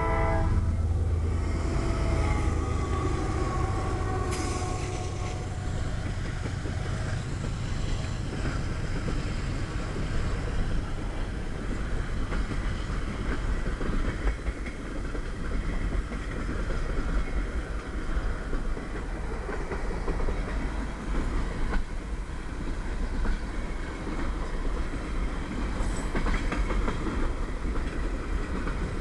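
CSX freight train rolling past. A horn cuts off at the very start and the locomotive's low rumble fades over the first seconds. After that comes the steady rolling noise of the freight cars, with the wheels clicking over rail joints.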